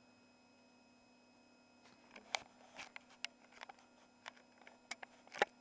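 A faint steady hum, then from about two seconds in a scatter of irregular light clicks and taps, the handling noise of a hand-held device.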